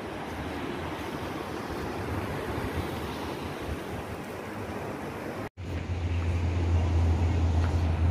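Ocean surf washing over a rocky reef, with wind buffeting the phone's microphone. The sound drops out for an instant about five and a half seconds in, and after that the low wind rumble on the microphone is louder.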